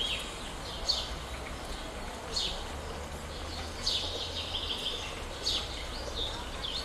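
Songbird calling outdoors: short, quick downward-sliding chirps repeating every second or so, with a longer warbling phrase about four seconds in, over a faint low hum.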